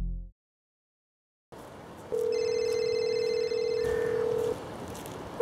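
A music note fades out at the start, followed by about a second of dead silence. Then a phone rings: a steady electronic tone lasting about two and a half seconds, with a higher chiming pattern over its first part.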